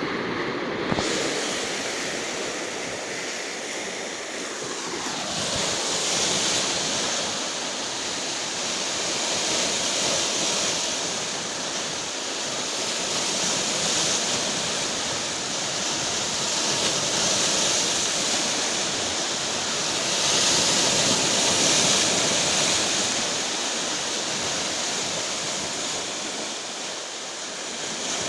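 Rough sea surf breaking on the shore: a continuous wash of water that swells louder every several seconds as bigger waves come in.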